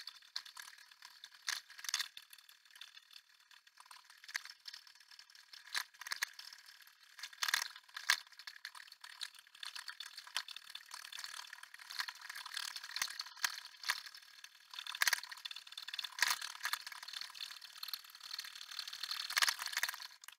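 Husqvarna Viking Designer Topaz 50 embroidery machine stitching lettering into nylon webbing: a light mechanical rattle of needle strokes with irregular louder clicks.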